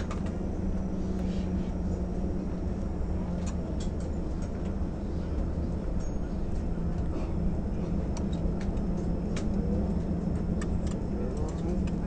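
Steady hum of an airliner cabin, with scattered light metallic clicks and taps from a lap seatbelt's buckle and latch plate being handled.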